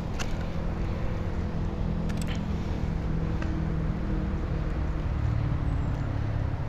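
A steady low engine hum in the background, its pitch drifting slightly. A few faint clicks come from hands working a hook out of a small largemouth bass's mouth.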